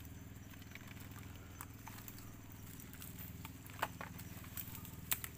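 Footsteps and movement through wet mud and shallow water among mangrove roots: a few sharp clicks and knocks, the loudest two in the second half, over a steady low hum.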